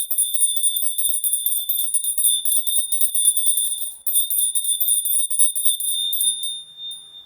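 A small hand bell rung rapidly and continuously, its clapper striking many times a second over a steady high ring, to cleanse the space. It pauses briefly about four seconds in, then rings on and dies away near the end.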